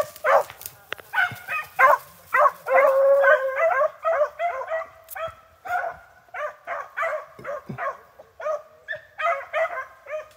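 A pack of rabbit-hunting dogs baying in many short, overlapping cries as they run the trail of a swamp rabbit, the chase still going.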